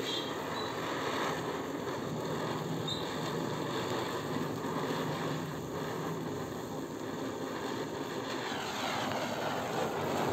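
Deluxe white ground spinner (chakri) firework whirling on the ground, giving a steady hiss of burning composition as it sprays sparks.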